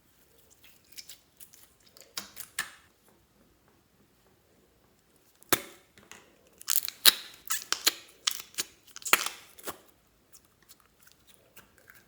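Slime being worked by hand: sticky squelches and crackling pops in two runs, the second louder and denser, starting about halfway through.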